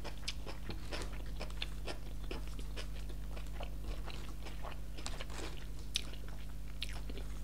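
Close-miked chewing and biting of fast food: many small crunches and wet mouth clicks, scattered irregularly, with one sharper click about six seconds in.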